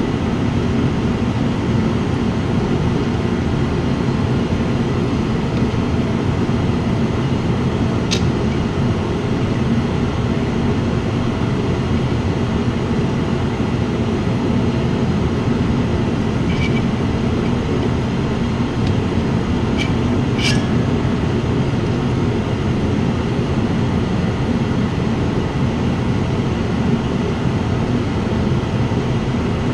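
Steady low mechanical drone running unchanged, with a few light metallic clinks as engine parts are handled, twice close together about two-thirds of the way through.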